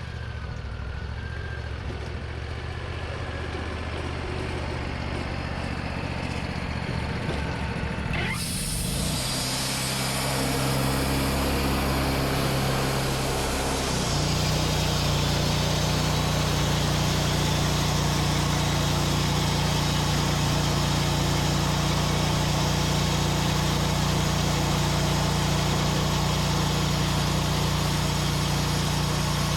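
An engine running steadily. About eight seconds in, a broad hiss joins it. Around fourteen seconds the engine settles at a higher, louder steady speed.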